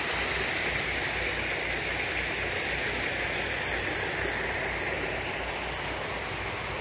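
Creek water rushing steadily over rocks and gravel.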